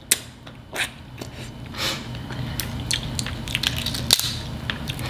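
Crab leg shells cracking and crunching as they are broken open by hand: a run of sharp, irregular snaps and crackles, the sharpest just after the start and again around four seconds in.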